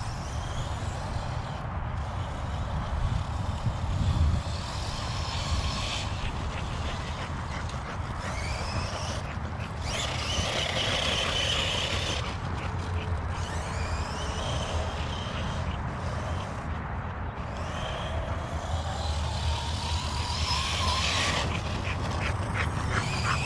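ARRMA Notorious RC truck's 1250 kV brushless motor, on a 4S battery, whining as it drives over grass, its pitch rising and falling as the throttle changes, over a steady low rumble.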